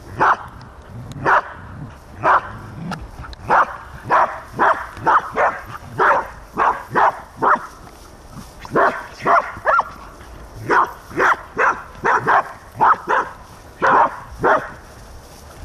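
A dog barking over and over: short, sharp barks in quick runs of two to five with brief pauses between, about two dozen in all.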